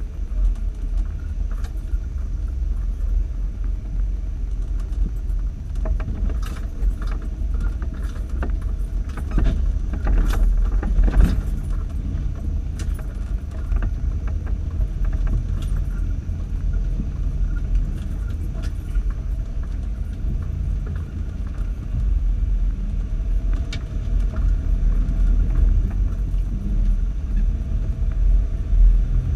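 Off-road vehicle crawling over a rough dirt trail: a low, steady engine rumble with rattling and knocking from the body. The clatter is busiest between about six and thirteen seconds in, with a few more knocks later.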